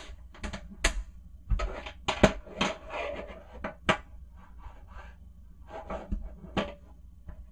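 Irregular knocks, clicks and short rustles, loudest about two seconds in, over a low steady hum.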